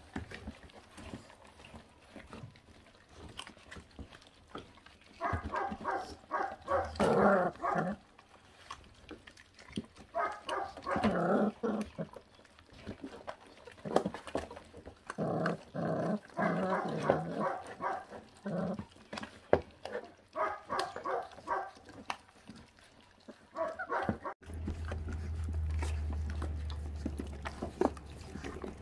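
Month-old feral-dog puppies growling and grumbling in short bouts as they gnaw raw meat and rib bones together, with chewing clicks in between. Near the end a steady low hum comes in.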